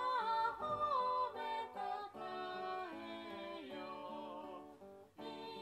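A recorded song with a voice singing a melody, played back through a small Bluetooth speaker.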